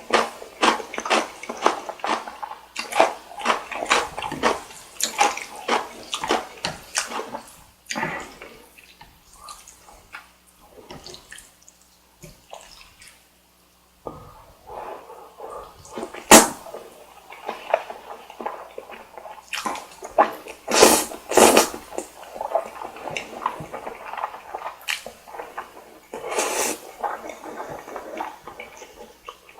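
Close-miked eating of saucy carbonara buldak noodles and chewy rice cake: rapid wet chewing and smacking for the first several seconds, a quieter stretch, then louder wet slurps in the second half.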